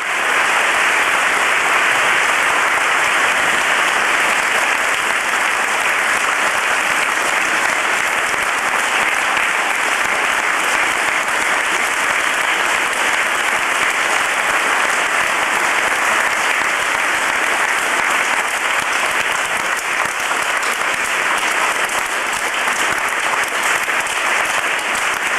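Audience applauding steadily, breaking out just as a piece of string music ends.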